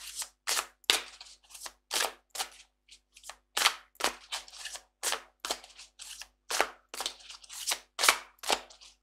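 A deck of Angel Wisdom Tarot cards being shuffled overhand, the cards snapping against each other in short, crisp slaps about two or three times a second.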